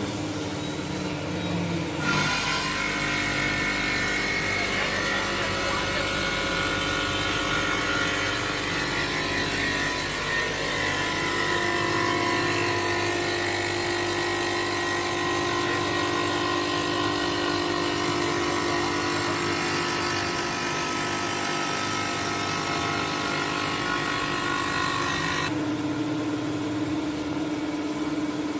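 Stone CNC sink cut-out machine running, its spindle driving a wheel around the cut-out edge of a stone countertop slab under water coolant: a steady mechanical whine with a hiss. The hiss grows stronger about two seconds in and eases near the end.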